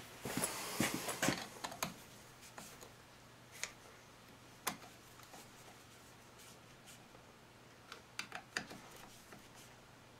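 Light clicks and taps of a hand screwdriver and its screws as they are turned in by hand on an Echo CS-330T chainsaw's muffler. There is a cluster of clicks in the first two seconds, a few single taps, and another short run of clicks near the end.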